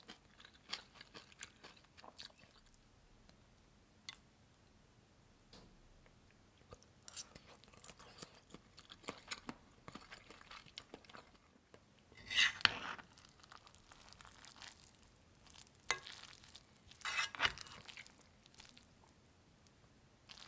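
A metal spoon scraping and clicking against an enamelled cast-iron pot as fried rice is stirred and scooped, with scattered chewing. The louder scrapes come in the second half.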